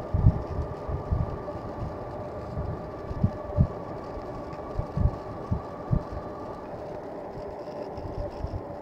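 Wind buffeting the microphone in irregular low thumps on a moving bicycle, over a steady mechanical hum whose higher tone drops out about two-thirds of the way through.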